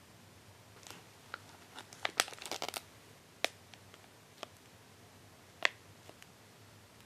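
Plastic packaging crinkling and crackling as it is handled: a dense flurry of crinkles about two seconds in, then a few separate sharp clicks.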